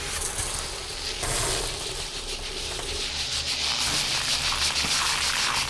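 A steady crackling hiss, like a spraying, sizzling jet, grows louder through most of the stretch and cuts away at the end. It is the sound laid in for the bombardier beetle's boiling chemical spray.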